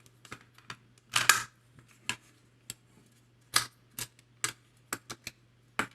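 Mini spring clamps and bent steel-wire track pieces clicking and tapping as the pieces are positioned and clamped down: a string of sharp, irregular clicks, the loudest about a second in and several more between three and a half and six seconds.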